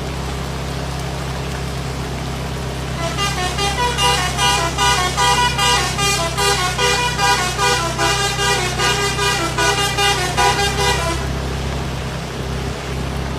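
Bus 'basuri' melody horn playing a quick run of short notes at changing pitches for about eight seconds, starting about three seconds in, over a steady low engine hum.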